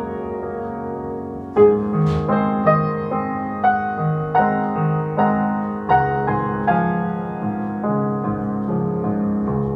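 Piano music: a slow, gentle melody of single struck notes, about one every second or less, over held chords in the bass.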